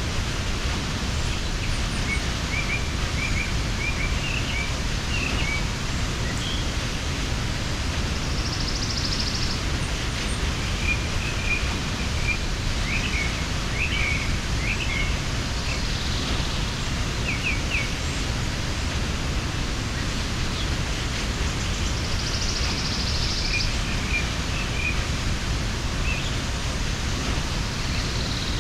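Steady rush of a mountain waterfall, with small birds chirping in short runs of quick notes every few seconds over it.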